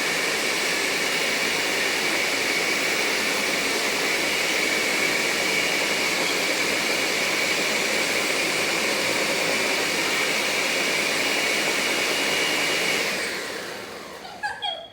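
Electric blender running steadily at full speed, mixing milk and flavoring, with a high motor whine over the rush of the motor. It is switched off about 13 seconds in and winds down.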